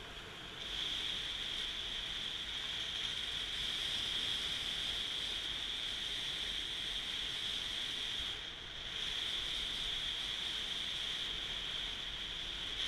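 Wind and tyre noise on a helmet camera while riding a scooter along a gravel road: a steady rushing hiss with a strong high-pitched edge, dipping briefly about eight seconds in.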